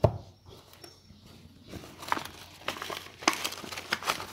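A red shop carrier bag being handled and rummaged through, crinkling and rustling in an irregular run of crackles from about two seconds in. A single knock comes right at the start.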